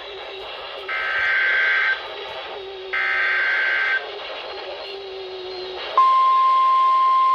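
Emergency Alert System header data bursts, the harsh digital screech of a NOAA Weather Radio alert: two bursts of about a second each, a second apart. About six seconds in, the steady single-pitch 1050 Hz Weather Radio warning alarm tone starts and holds, announcing a new severe thunderstorm warning.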